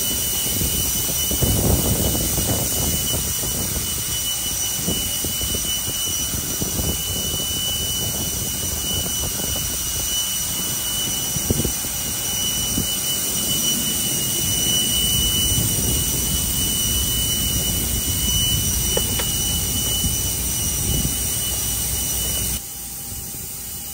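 Steady jet-turbine noise on an airport ramp: a continuous roar with a constant high-pitched whine. There is a single sharp knock about halfway through, and the level drops abruptly near the end.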